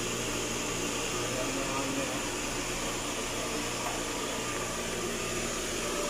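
Electric water pump running with a steady hum, building pressure in the tank toward the new pressure switch's cut-off at about 40 PSI.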